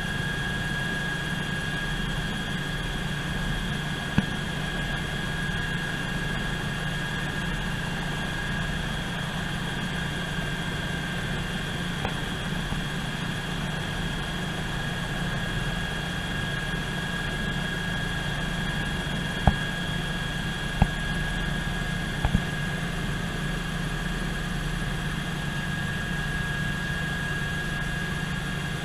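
Eurocopter EC120 Colibri's Turbomeca Arrius turboshaft engine and main rotor running steadily with the helicopter on the ground, heard from inside the cabin: a high, even turbine whine over a low rotor drone. A few sharp clicks stand out, one about four seconds in and three close together about two-thirds of the way through.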